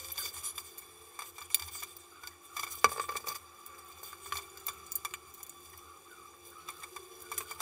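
Wet clay squeezed and smeared by hand: soft, irregular crackling and small clicks, with one sharper click about three seconds in, over a faint steady hum.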